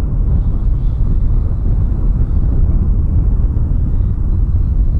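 Wind buffeting the microphone in a steady low rumble, with a faint thin whine from an RC model jet's electric ducted fan flying overhead.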